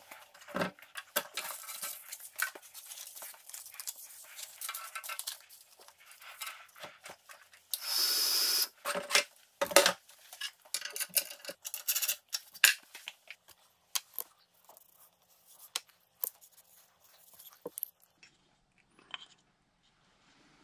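Belt grinder's steel work-rest table and fittings being handled and swapped: irregular light clanks, knocks and scrapes of metal. A loud hissing rush of under a second comes about eight seconds in.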